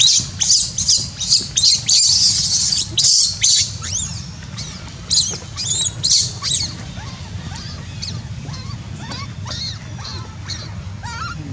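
Newborn macaque crying: a rapid run of shrill, high-pitched squeals, loud and close together for the first few seconds, then fainter and more spaced out. These are the infant's distress cries.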